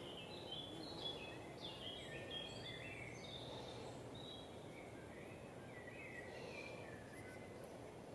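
Several songbirds singing together: many short chirps and warbled phrases, overlapping and busiest in the first few seconds, over steady low background noise.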